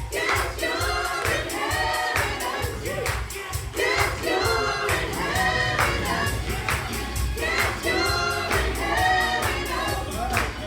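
A choir singing a gospel worship song over a band with strong bass and a steady drum beat.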